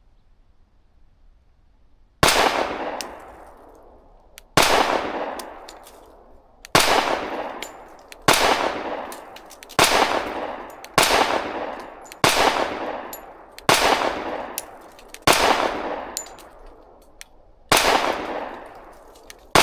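Ported Girsan Witness 2311 Brat .45 ACP pistol fired slowly: single shots about one to two and a half seconds apart, each sharp crack trailing off in a ringing echo, starting about two seconds in and running through the magazine to a last shot at the very end.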